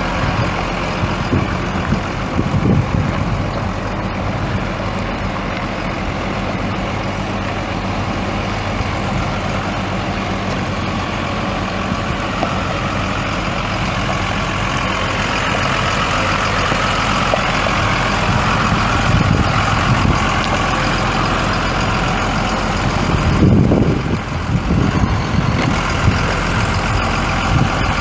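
Cummins ISB 5.9-litre inline-six turbo diesel in a Ford F650 truck, running steadily, with a brief louder rumble near the end.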